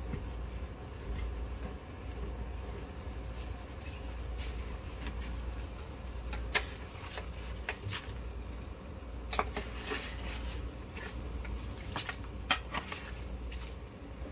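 A metal baking sheet of roasted potatoes and Brussels sprouts being handled out of the oven: several sharp metal knocks and clinks, the loudest about halfway through and near the end, over a steady low hum.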